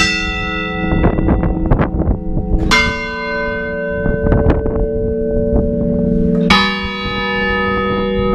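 Bronze church-tower bells tolling a clamor, the Spanish toll for the dead. Three heavy strokes about three seconds apart, each on a different bell, are left ringing, with quicker, lighter strikes between them.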